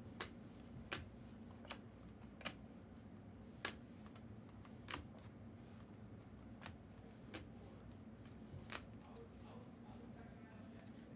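Trading cards being flipped and set down one by one: about a dozen short, crisp clicks at uneven spacing, over a faint steady hum.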